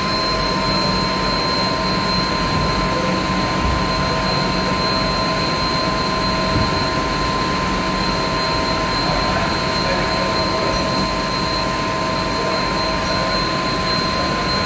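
Gildemeister GD 32 lathe running with flood coolant spraying over its tool turret: a steady rush of spraying coolant under a constant machine whine made of several high tones.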